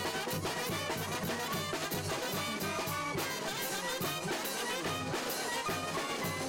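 Oaxacan village wind band (banda filarmónica) playing, with brass instruments over drums keeping a steady beat.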